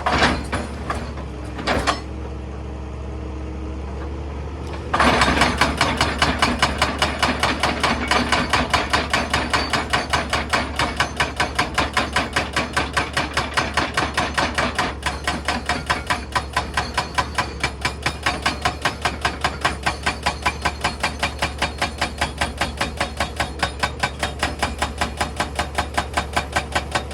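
Excavator-mounted hydraulic rock breaker hammering stone in a fast, regular rhythm of a few strikes a second, starting about five seconds in and stopping near the end, over the steady hum of the machine's diesel engine. A couple of single knocks come before the hammering starts.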